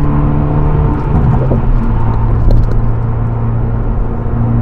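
Hyundai Veloster N's turbocharged 2.0-litre four-cylinder engine and exhaust heard from inside the cabin at highway speed, over tyre and road noise. About a second in, the engine note drops as the driver shifts up, then settles into a steady drone.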